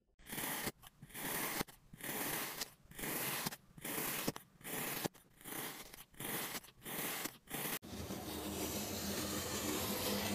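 Packed kinetic sand being sliced with a knife: about a dozen short cutting strokes with brief gaps, a little more than one a second. About eight seconds in it changes to a steady continuous scrape as a groove-cutting tool is drawn along a block of kinetic sand, peeling off a curl.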